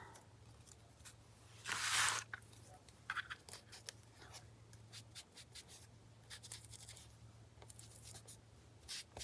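Paper craft pieces being handled on a work surface: a short paper rustle about two seconds in, then light taps and clicks, over a faint steady low hum.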